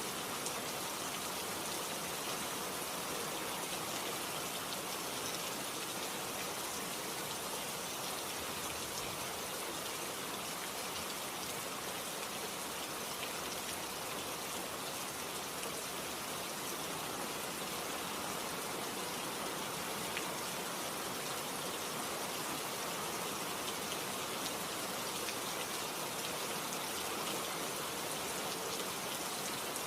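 Steady heavy rain, a dense even hiss of drops with faint scattered ticks of individual drops.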